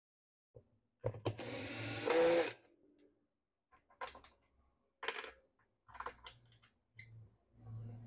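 Cordless drill driving a screw into a washing machine basket's floor plate, running for about a second and a half and getting louder just before it stops. Then a few short clicks and knocks of parts being handled.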